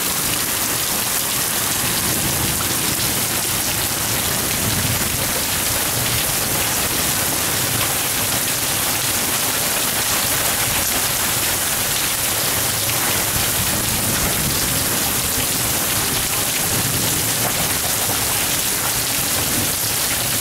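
Heavy rain falling steadily, a dense even hiss of drops striking the ground and surfaces.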